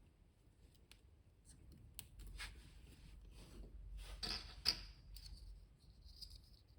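Small objects handled at close range: faint light clicks, then a few seconds of soft scraping and rustling with one sharper click partway through.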